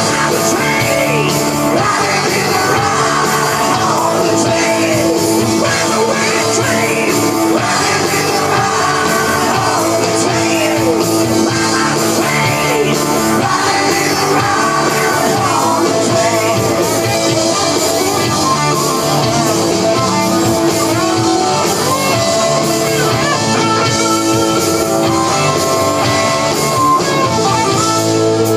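Rock music played by a band: a singer over electric guitar, running without a break.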